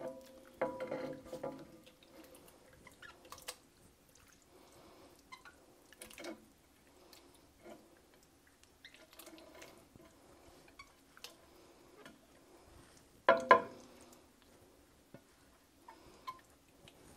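Spatula scraping marinated chicken pieces off a baking pan into a pot of sauce: soft wet plops and small clicks and scrapes of the spatula against the pan. There is a louder scrape about a second in, and the loudest about three-quarters of the way through.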